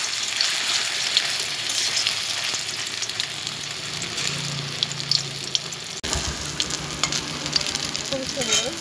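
Pumpkin flowers coated in rice-flour batter sizzling as they deep-fry in hot oil in a kadai, with many small crackling pops.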